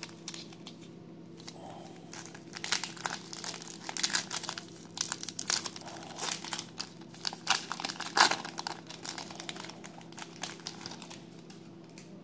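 Foil baseball card pack wrapper crinkling and tearing as it is opened and handled: a run of irregular sharp crackles through most of the stretch, quieter near the start and end.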